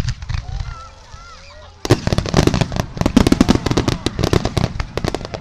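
Fireworks: a sharp bang right at the start, then from about two seconds in a dense, rapid crackle of many small reports that keeps going, with spectators' voices faintly under it.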